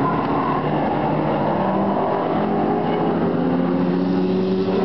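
Several stock car engines running hard at once as the cars race around the track, their pitch rising and falling.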